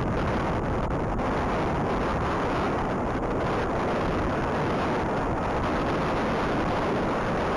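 Blizzard wind buffeting a body-worn camera's microphone: a steady, low rumbling noise with no break.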